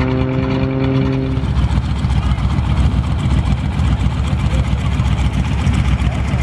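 Piston engine running close by: a steady pitched hum that drops out about a second and a half in, leaving a loud, dense rumble.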